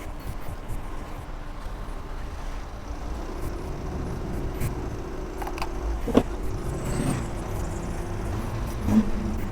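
A motor vehicle running with a steady low rumble, and a few brief clicks and short sounds over it.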